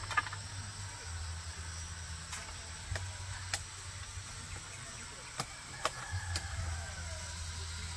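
Sickle blade chopping at the stalk of a coconut bunch: about half a dozen sharp knocks at irregular intervals.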